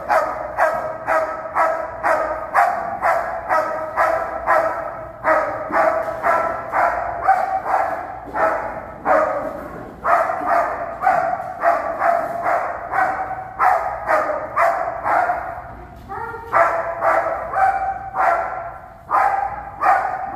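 Protection-trained black shepherd-type dog barking continuously at a decoy holding a bite sleeve, about two to three sharp barks a second, with a few brief pauses: guard barking at a threat to its owner.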